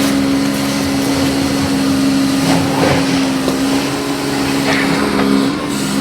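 Engine of a heavy construction machine with a boom, running at a steady speed with a constant hum.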